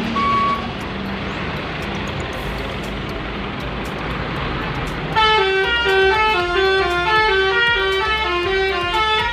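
A bus engine running with traffic noise, a reversing beeper sounding once right at the start. About five seconds in, a basuri telolet horn starts playing a quick tune of stepping notes, louder than the engine.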